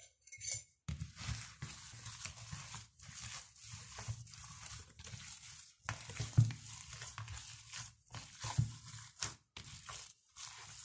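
Hands kneading and squeezing raw minced beef in a plastic bowl: a run of irregular wet pressing strokes starting about a second in, with a louder thump about six seconds in.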